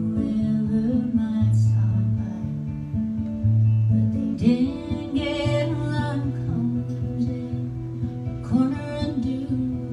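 Live solo acoustic guitar strumming, with a woman's singing voice coming in twice, around the middle and near the end.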